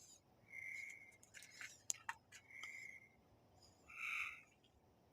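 Faint bird calls: three short whistled notes, each about half a second, spaced a second and a half to two seconds apart, with a couple of light clicks between them.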